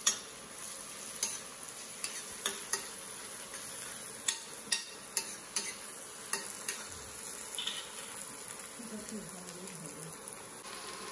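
Chopped onions and green chillies sizzling in ghee in a steel kadhai on an induction cooktop, sautéing, with a steel spoon stirring them and clinking against the pan at irregular moments.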